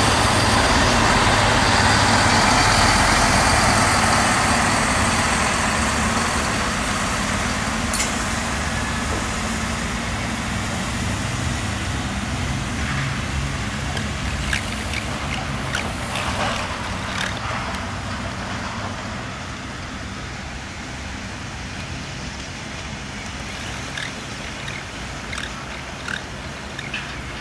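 Siemens Desiro diesel multiple unit pulling away, its engines and running noise fading steadily as it recedes, with a few sharp clicks over it.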